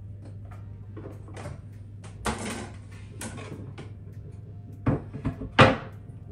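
Kitchen-sink handling sounds as a whole raw chicken is washed: a handful of short wet rustles and knocks, the loudest about five and a half seconds in, over a steady low hum.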